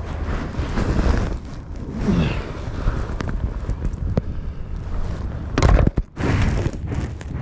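Muffled rubbing and knocking of a covered camera being handled, over a steady low rumble, with one loud thump about five and a half seconds in.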